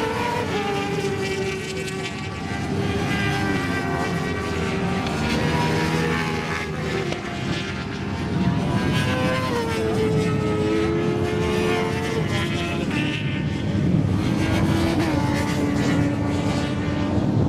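Several racing superbikes' engines at high revs, their notes falling and rising in pitch as the bikes brake into a bend and accelerate out, with more bikes audible further around the circuit.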